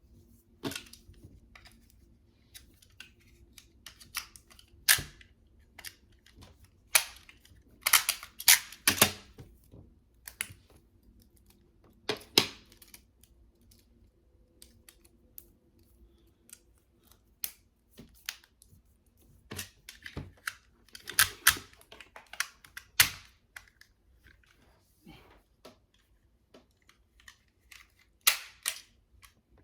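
Irregular sharp clicks and taps of small plastic pieces and cases being handled, some in quick clusters, over a faint steady hum.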